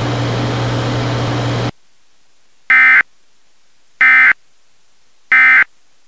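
Three short bursts of warbling data tones from an Emergency Alert System SAME End of Message code, about a second apart, which mark the end of the alert. Before them a steady hiss with a low hum cuts off suddenly just under two seconds in.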